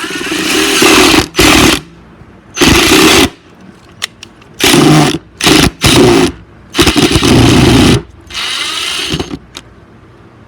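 Ryobi cordless impact driver running in a series of short bursts of its rapid hammering, driving a screw into wood; the last burst is quieter.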